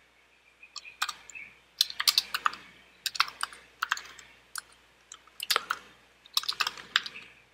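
Typing on a computer keyboard: quick bursts of keystrokes with short pauses between them.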